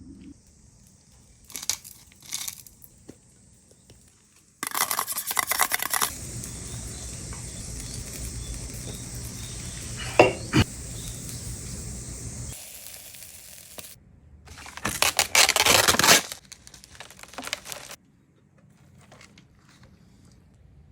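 Outdoor cooking handling sounds: rustling and crinkling, utensils knocking against a pan, and a steady hiss of about six seconds, like food sizzling, with a sharp clink in the middle of it.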